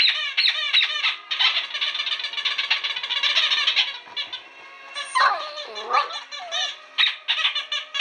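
Rubber squeaky dog toy squeaked rapidly over and over as the golden retriever puppy chews it, a quick run of short squeaks. About five seconds in comes one longer, lower squeak that wavers down and up.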